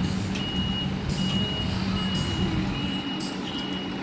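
Reversing alarm of a Scania P360 tractor unit beeping steadily, about five high beeps a little under a second apart, over the low running of its DC11 inline-six diesel engine as the truck backs up slowly.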